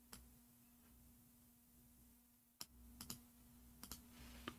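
Faint computer keyboard and mouse clicks in near silence: one at the start, then a few scattered clicks in the second half, over a faint steady hum.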